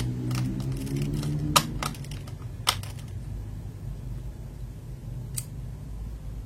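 A few sharp small clicks from handling a mechanical keyboard switch stem and a caliper during measurement: two close together about a second and a half in, a louder one near three seconds, and one more about five and a half seconds in, over a low hum that fades out after the first two seconds.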